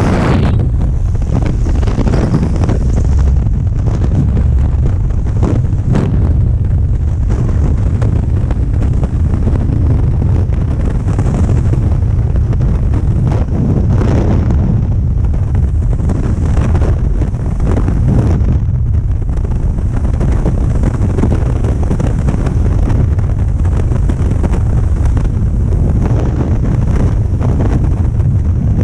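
Freefall wind rushing over the skydiver's camera microphone: a loud, steady rush of air that hardly changes.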